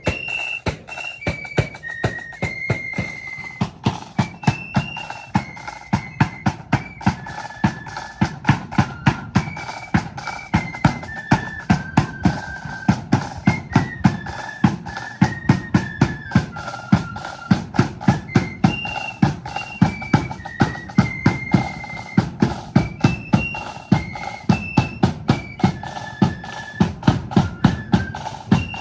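Loyalist marching flute band playing a tune: high flutes carry a stepping melody over a steady marching beat of bass drum and snare drums.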